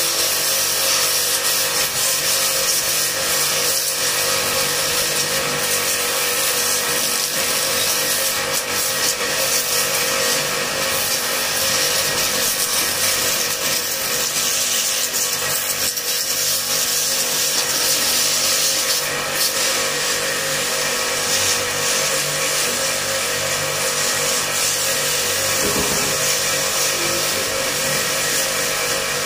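Starq W3A electric pressure washer running steadily, its motor and pump giving a constant hum under the hiss of the high-pressure water jet spraying a motorcycle's rear wheel.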